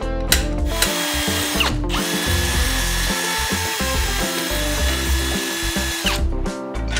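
Power drill boring rivet holes through a floor jack's skid plate: a short run, a brief stop just under two seconds in, then a steady run of about four seconds with a high motor whine.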